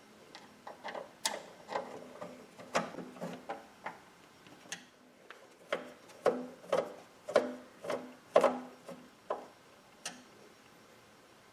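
Screwdriver turning the screws that hold a computer case's metal side panel: a series of irregular clicks and ticks in two runs, with a short pause between them.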